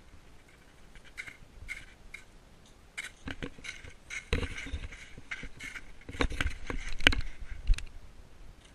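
Hard, crusted snow crunching and scraping under a person moving on it barefoot and shirtless. The loudest thumps come about six to seven seconds in, as he drops back into the snow.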